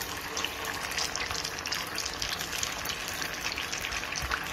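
Vegetable Manchurian balls deep-frying in hot oil in a kadai: a steady sizzle with fine crackling.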